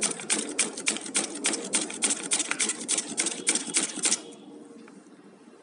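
Raw potato being slid quickly back and forth over the slicing blade of a stainless steel flat grater, each stroke cutting off a thin chip slice with a sharp scrape, in a fast, even rhythm of about five strokes a second. The slicing stops about four seconds in.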